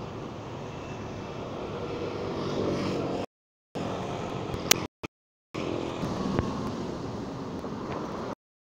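Road traffic at a street crossing: a steady noise of cars passing. It cuts out to silence twice for about half a second midway, then stops abruptly near the end. A single sharp click comes just before the second gap.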